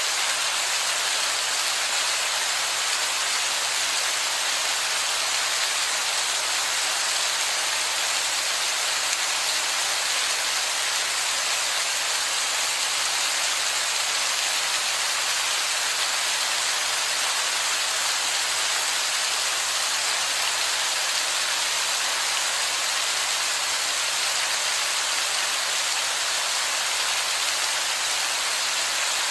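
Rain falling steadily: a dense, even hiss with no single drops standing out.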